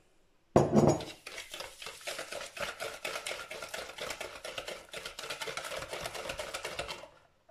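Wire whisk stirring eggs and sugar in a plastic bowl: rapid, steady scraping and clicking of the wires against the bowl, which stops shortly before the end. It starts with a short, louder burst about half a second in, as the sugar is tipped in from a glass.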